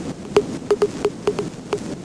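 A rapid, irregular run of sharp clicks, about four or five a second and some in quick pairs, over a steady hiss.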